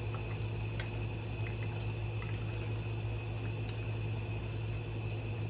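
Eating sounds during a mukbang of baked goat: scattered small sharp clicks of chewing and mouth sounds, with light clinks of food or a utensil against a plate, over a steady low hum.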